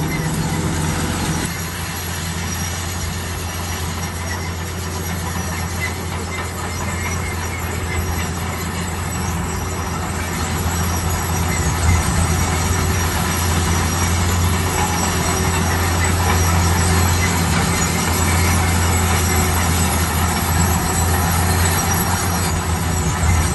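Bulldozer at work: its diesel engine running with a steady low drone under the grinding and metallic squealing of its steel crawler tracks.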